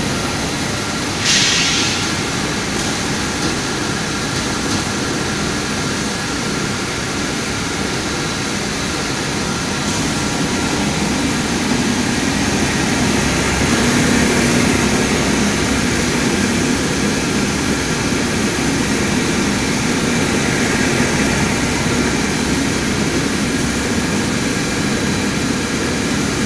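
Textile waste recycling line running: the steady din of a row of NSX FS250 fibre-processing machines and their ducting, with a brief hiss about a second in and the noise growing a little louder partway through.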